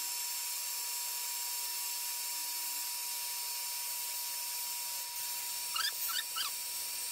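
Small vacuum cleaner running steadily with a high-pitched whine and hiss, its dusting brush sweeping dust from a plastic bathroom exhaust-fan grille. A few short squeaks come near the end.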